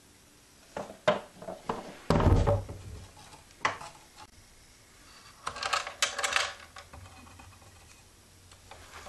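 A small slatted wooden crate being handled on a wooden floor: a few wooden knocks, a heavier thud about two seconds in as it is set down, then clicking and rattling of its metal clasp around six seconds.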